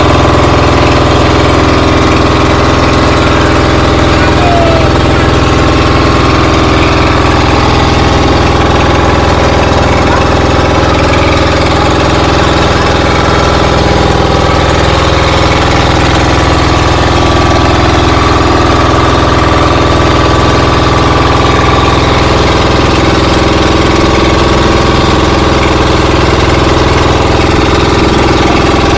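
An engine running steadily and loudly, with an even, unchanging drone.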